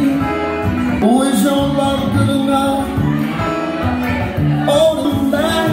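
Live band playing a country-rock song: guitars, bass and percussion.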